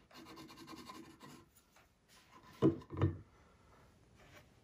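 Pencil scribbling rapidly back and forth on a bare hickory axe handle, marking the high spots to sand away so the axe head fits. About two and a half seconds in come two dull knocks close together.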